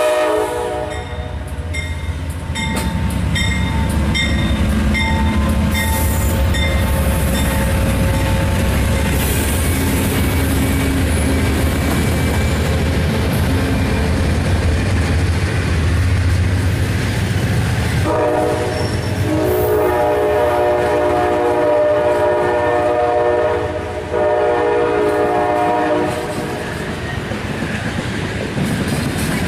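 Amtrak GE P42DC diesel locomotives passing close by: a horn blast ends just after the start, a locomotive bell rings steadily for the first several seconds, and a deep engine rumble follows as the units go by. Then bilevel passenger cars rush and clack over the rails while the horn sounds again in several blasts about two-thirds of the way through.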